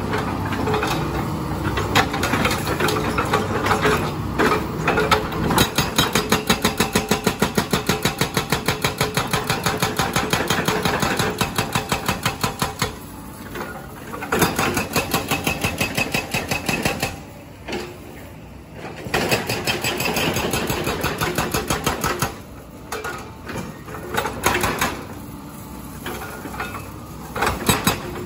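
Hydraulic breaker on a tracked excavator rapidly hammering its chisel into a reinforced concrete road slab, over the excavator's running engine. The hammering stops briefly several times and starts again.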